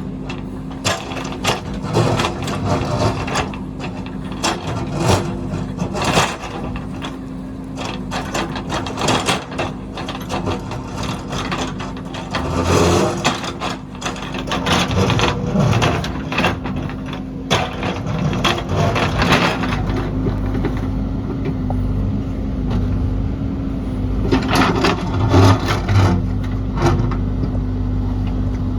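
JCB backhoe loader's diesel engine running steadily under many sharp clicks and knocks of rock and stones as the machine works rocky ground; the engine's low rumble grows heavier late on.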